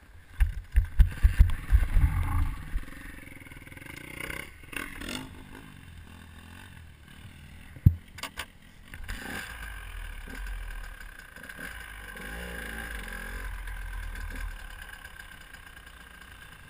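Wind buffeting and thumping on a helmet-mounted camera's microphone for the first couple of seconds, then a motocross bike's engine running slowly and steadily at low revs, with a couple of sharp knocks about eight seconds in.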